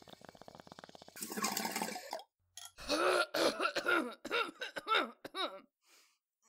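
A person coughing hard after smoking cannabis. A faint rapid bubbling comes first, then a loud breathy rush about a second in, then a fit of about nine harsh, voiced coughs that weaken toward the end.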